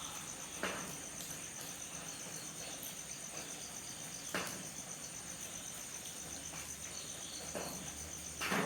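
Crickets chirping in a steady, fast-pulsing trill, broken by a few sharp taps. A faint low rumble comes in about six seconds in.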